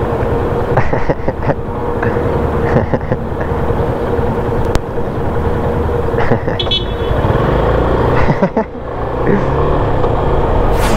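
Motorcycle engine idling steadily amid city street traffic, then revving with rising pitch as the bike pulls away near the end.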